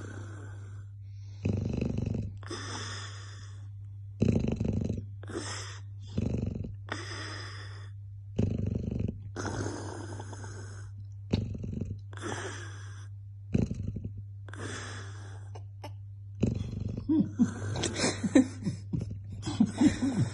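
A sleeping dog snoring, with a snore on its breaths about every second or two. Near the end the snores break into a quicker, choppier run of snorts.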